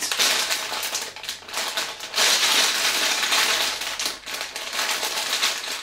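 A clear plastic bag full of Lego pieces crinkling and rattling as it is handled and turned over in the hands. It is loudest from about two seconds in.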